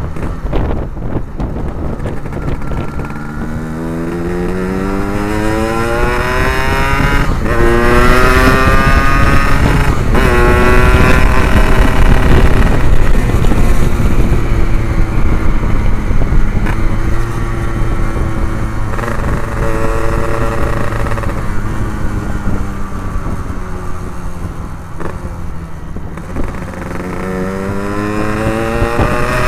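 Yamaha RX-King 135cc two-stroke engine through an Abbox C20 aftermarket exhaust, pulling hard while being ridden: the revs climb and break at shifts about seven and ten seconds in, then hold and ease off, and climb again near the end.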